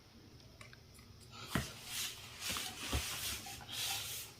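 Soft rustling and scratching with a couple of light taps, starting about a second and a half in.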